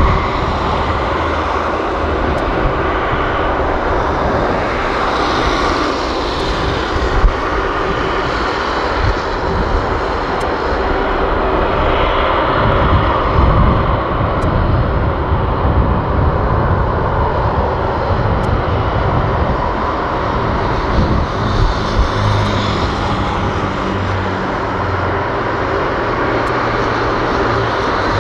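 Airbus A330F freighter's jet engines running steadily as the aircraft moves along the runway, a continuous jet noise with a low rumble underneath.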